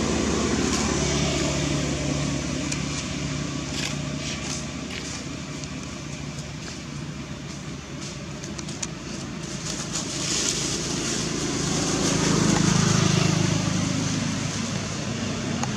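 A motor vehicle's engine running, its drone fading and then swelling again to a peak about twelve seconds in, with scattered faint clicks.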